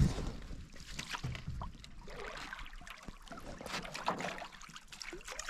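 Canoe paddles dipping and pulling through lake water, with irregular splashes and water trickling off the blades.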